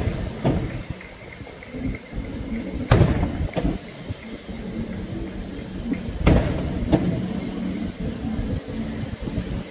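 Fireworks shells bursting: sharp booms with rumbling echoes, five in all, mostly in pairs a little over half a second apart, about three seconds and six seconds in.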